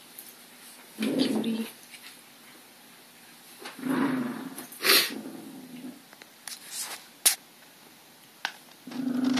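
Pomeranian vocalizing in short, low growly sounds, three times: about a second in, from about four to six seconds in, and near the end. A couple of sharp clicks fall between them.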